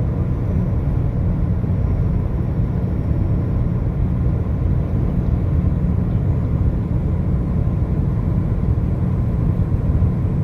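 Steady low rumble of a car moving along the highway: engine and tyre noise on the road.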